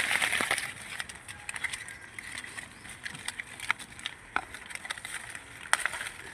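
Mango tree leaves and twigs rustling, with scattered sharp clicks and snaps as fruit is picked from the branches. The rustling is loudest at the start.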